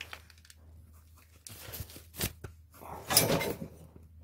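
Brief scraping and rustling handling noises with a single light click, from a hand working at the oil pump thrust plug on a Peugeot XD diesel engine block. The loudest scrape comes about three seconds in.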